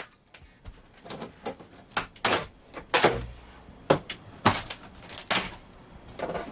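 A run of irregular knocks, bangs and scrapes in a small hollow-sounding room, unevenly spaced, several of them loud.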